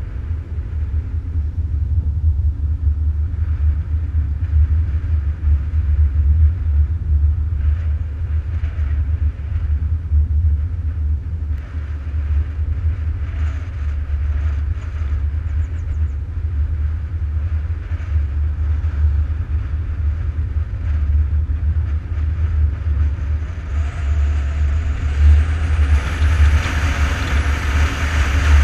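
Wind buffeting the microphone of a camera moving fast down a road, a steady low rumble with road noise. A hiss grows louder over the last few seconds.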